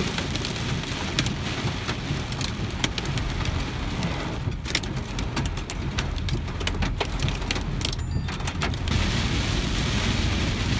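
Heavy rain drumming on a car's roof and windscreen, heard from inside the cabin, with many sharp individual drop strikes over a low steady rumble of the car driving. The downpour grows louder near the end.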